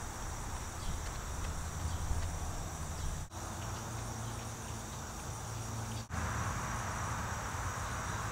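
Steady high-pitched chirring of insects in the background over a low rumble, cutting out briefly twice.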